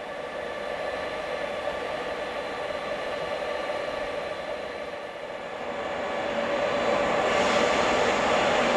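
Czech Railways class 151 electric locomotive standing with its onboard equipment running: a steady whirring hum at a few fixed pitches. It grows louder and hissier about seven seconds in.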